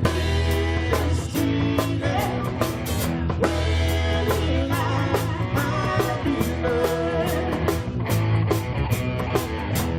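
Live band playing a 1970s rock cover, with guitar and a drum kit keeping a steady beat.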